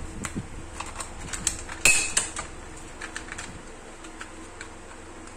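Clear plastic cassette tape case being handled as its paper insert is fitted back in, giving irregular clicks and plastic knocks, with the loudest snap about two seconds in.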